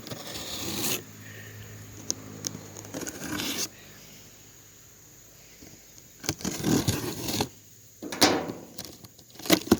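Cardboard shipping box being opened by hand: several bursts of scraping and tearing as the tape and flaps are worked and the packing inside is rustled, with small clicks between.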